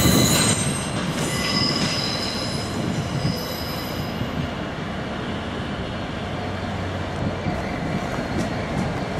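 EWS Class 66 diesel-electric locomotive (two-stroke V12 engine) approaching at the head of a loaded freight train. High squealing from the wheels over the pointwork is heard for the first few seconds, then a steady rumble of the engine and wagons, with wheels clicking over rail joints near the end.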